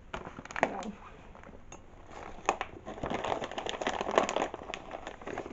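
Kitchen handling sounds as carob is put into a bowl: scattered light clicks, then a denser crinkling rattle about three seconds in.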